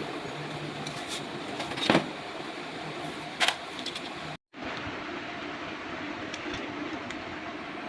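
Steady mechanical running noise with a low hum, broken by two short clicks and cut off for a moment about four and a half seconds in before it carries on.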